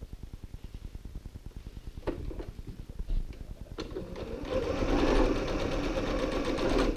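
Domestic sewing machine stitching with a very short stitch length. It runs slowly at first with a steady pulse of stitches, then speeds up and gets louder about halfway through, stopping near the end.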